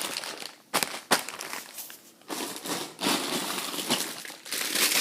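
Plastic Lego parts bags crinkling as they are handled and sorted, with loose bricks rattling inside and a couple of sharp clicks about a second in.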